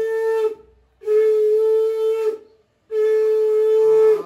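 Conch shell (shankha) blown in long, steady blasts of one fixed pitch: one blast ends about half a second in, then two more of about a second and a quarter each follow after short breaks.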